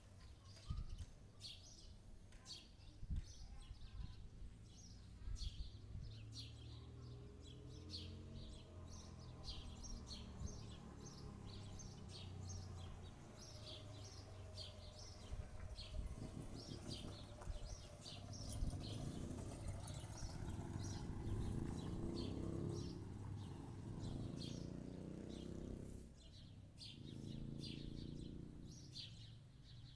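Birds chirping over and over in short, high calls. A low rumble swells up about a third of the way in and dies away near the end.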